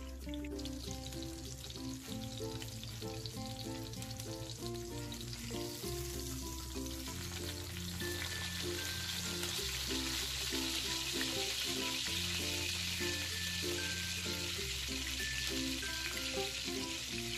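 Breaded pork chop sizzling in hot oil in a nonstick skillet, the sizzle growing louder about seven seconds in. Background music plays underneath.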